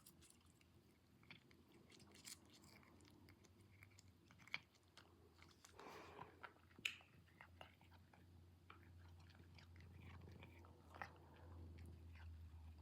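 A cat chewing crunchy Temptations treats: faint, irregular crunches and clicks, a few sharper ones, over a low steady hum.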